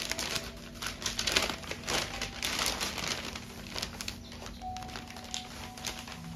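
Brown paper packaging crinkling and rustling as it is handled, busiest in the first few seconds and then tapering off.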